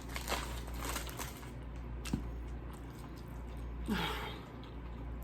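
Close-up chewing of a soft, oil-and-vinegar-soaked sub sandwich: wet, squishy mouth sounds with small smacks and clicks, and a short vocal sound about four seconds in.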